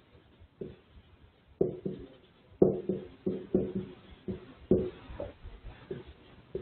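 Marker writing on a whiteboard: a string of sharp taps and strokes, each followed by a short ringing tone from the board that quickly fades.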